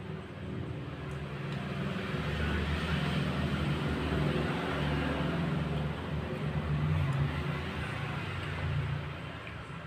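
A motor vehicle going past, its engine and road noise swelling over the first few seconds, holding, and fading near the end.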